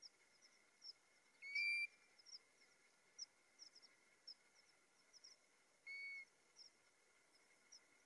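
European golden plover calling: two single, steady whistles about four seconds apart, each under half a second, the first louder. Faint, quick high chirps sound in the background.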